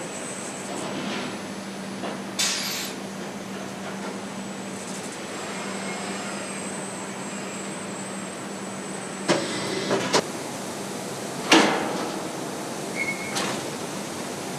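Engine-block casting machinery running with a steady hum and hiss, broken by a short burst of noise about two seconds in. In the second half the hum stops and several sharp metallic clanks and bangs follow.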